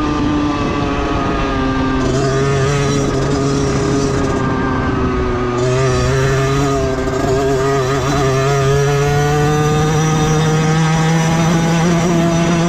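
Beta 50cc two-stroke motorcycle engine running steadily under way, its pitch dropping about two seconds in and then climbing slowly.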